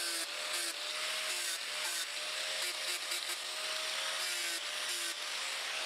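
Angle grinder fitted with a sanding disc, running against the cut edges of pressure-treated lumber to bevel them: a steady motor whine over an even abrasive rasp.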